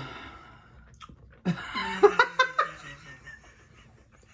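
A person laughing: a short run of chuckles about one and a half seconds in, a reaction to a disappointing bite of mac and cheese.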